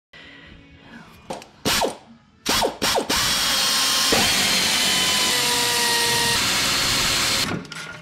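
Cordless power tool spinning the front timing cover bolts out of the engine: a few short spurts of the motor, then one steady run of about four seconds that stops shortly before the end.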